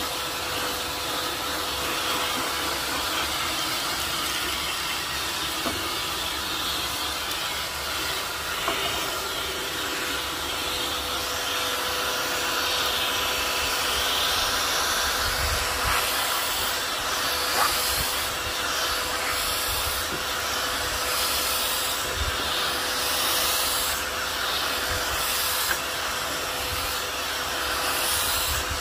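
Filter Queen Majestic vacuum running steadily, a rush of air with a constant whine, sucking through a round horsehair dusting brush. In the second half the rush swells and fades again and again as the brush is worked over the fabric of a lamp shade.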